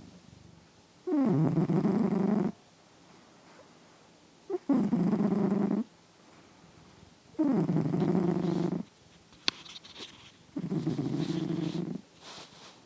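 Sleeping domestic cat snoring loudly: four snores about three seconds apart, each a low buzzing breath lasting about a second and a half, with quiet between.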